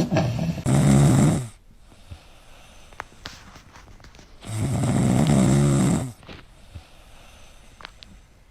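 Dog snoring: two long snores about four seconds apart.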